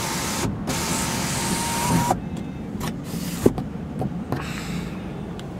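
2011 Mazda CX-7 power sliding sunroof motor running with a steady whine as the glass panel slides, stopping with a click about two seconds in. A few sharp clicks and knocks follow.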